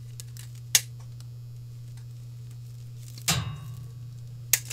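Handling noise from a steel tape measure and a coiled communication cable: a sharp click about a second in, a louder rattle with a short ring past the middle, and another click near the end. A steady low hum lies under it all.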